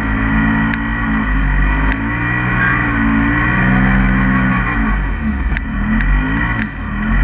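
Polaris RZR side-by-side engine under hard throttle, revving up and easing off as it drives through deep snow. The revs climb for the first few seconds, drop off around five seconds in, then rise again near the end, with a few light ticks over the top.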